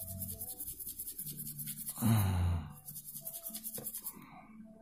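Small stiff brush scrubbing the headphone-jack connector of a water-damaged Oppo F9 phone, in quick, regular strokes. A short, louder low sound breaks in about two seconds in, and the scrubbing stops shortly before the end.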